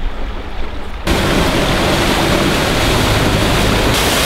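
A loud, steady rushing noise that starts suddenly about a second in: an outboard-motor boat and its wake running past close by, with wind on the microphone.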